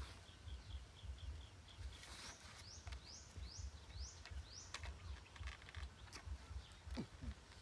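Birds calling faintly: a quick run of short chirps, then a series of about seven rising whistled notes, over a pulsing low rumble.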